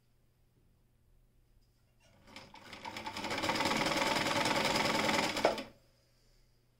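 Brother Window-Matic semi-industrial sewing machine stitching through several layers of material: it starts about two seconds in, picks up speed to a fast, steady run of stitches, and stops suddenly with a click.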